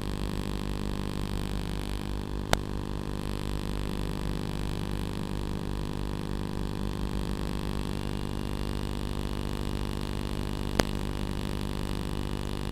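Steady hum of many evenly stacked tones that holds one pitch, picked up through a Blade 120SR micro helicopter's onboard FPV camera and video link in flight, with a hiss over it. Two sharp clicks about eight seconds apart.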